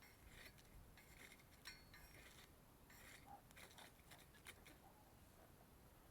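Faint crackling and scattered small clicks of a twig fire burning in a small wood-burning camp stove, over near silence.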